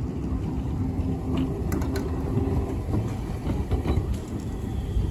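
Streetcar rolling past on snowy track with a low rumble and a steady hum. A scattering of sharp clicks and knocks from the wheels and rails comes from about a second and a half in.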